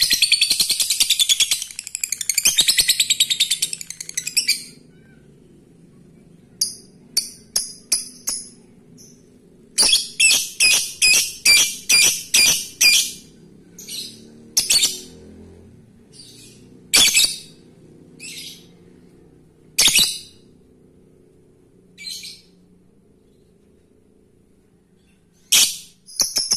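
Male Fischer's lovebird calling: a fast, unbroken run of high shrill chirps for the first four seconds or so (the chattering 'ngekek'), then separate sharp chirps with pauses, one quick run of about eight and the rest singly, with a fast run starting again at the very end.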